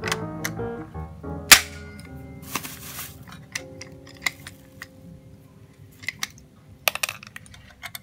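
Background music with held notes, over sharp clicks and knocks from handling the metal-cased microwave magnetron and its parts; the loudest is a single sharp knock about one and a half seconds in, and a brief rushing scrape follows about a second later.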